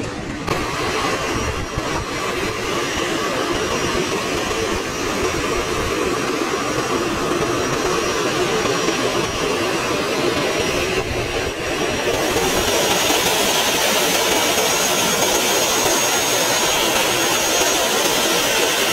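Jet engines of a Boeing 737 airliner running as it rolls along the runway and taxis: a steady rush of engine noise with a thin high whine. The hiss grows louder and brighter about two-thirds of the way through as the aircraft comes closer.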